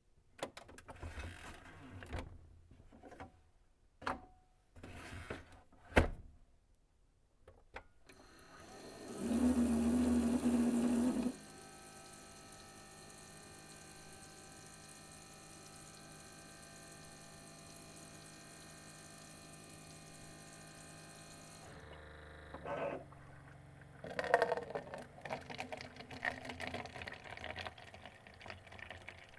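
Keurig single-cup coffee maker in use: a few sharp clicks and knocks, then a loud pump buzz for about three seconds, a steady quieter hum, and near the end water gurgling and spluttering as the coffee brews.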